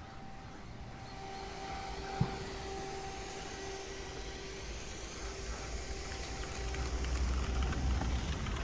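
A motor running with a steady whine and a low rumble that grows louder near the end, with a single knock about two seconds in.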